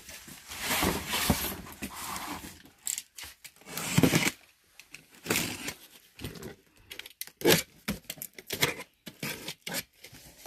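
Box cutter slitting packing tape on a cardboard box, with scraping and rustling of cardboard as the box is handled, in irregular bursts with a few sharp knocks.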